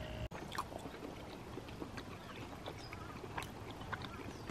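Faint steady outdoor background noise with a few scattered soft clicks, after a brief cut-out of the sound just after the start.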